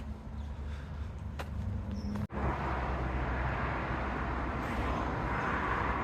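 Outdoor vehicle road noise: a low rumble, then, after an abrupt cut about two seconds in, a louder rushing noise that swells toward the end.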